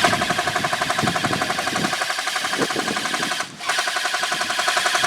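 Airsoft rifle firing long full-auto bursts: a rapid, even rattle with a steady whine. It pauses for a moment about three and a half seconds in, then fires again.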